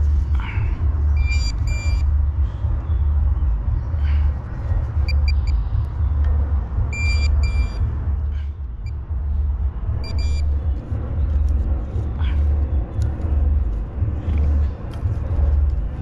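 Metal detector giving short high beeps, in small clusters about a second in, around five and seven seconds in, and near ten seconds, while a target is checked. A constant low rumble runs underneath.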